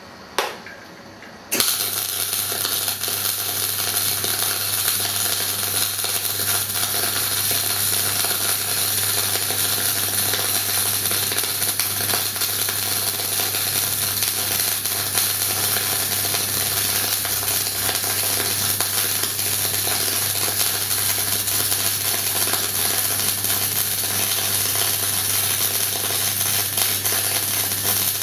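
MIG welder arc welding steel with carbon dioxide shielding gas: a brief strike just after the start, then the arc catches about a second and a half in and runs steadily as a loud hiss with a low hum, stopping abruptly at the end.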